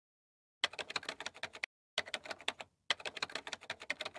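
Rapid keyboard-typing clicks, about ten keystrokes a second, starting about half a second in and coming in three runs with short pauses between them: a typing sound effect for text being typed out on screen.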